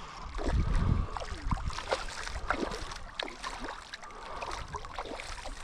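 Shallow creek water babbling and gurgling, with many short bubbling chirps. A low wind rumble on the microphone comes in the first second.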